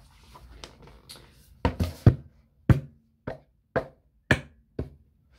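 A run of about eight sharp knocks on a hard surface, uneven in spacing at a little under two a second, starting about one and a half seconds in.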